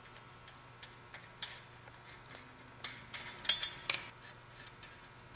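Scattered small metal clicks and clinks as the last lug nuts are spun off a car wheel by hand, with a cluster of louder, briefly ringing metallic clinks about three and a half seconds in.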